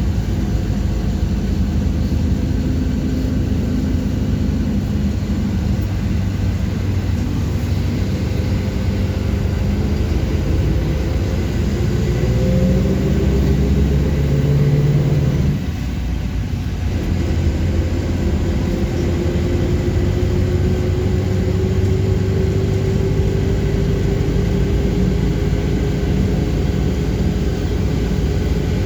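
City bus engine and road noise, heard on board while the bus drives. The engine note climbs twice as the bus speeds up, with a brief drop in loudness about halfway between the two climbs.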